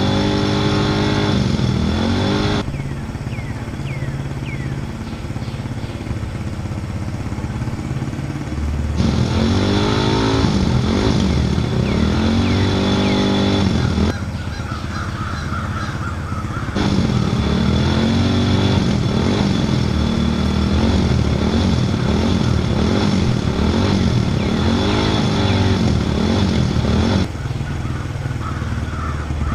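Vehicle engine revving up and down again and again, the sound changing abruptly several times.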